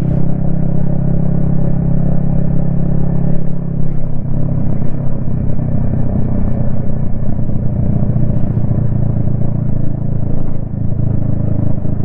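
Yamaha XSR155's single-cylinder engine running at a steady cruise, heard from the rider's helmet. The level dips briefly about two-thirds of the way through, then picks up again.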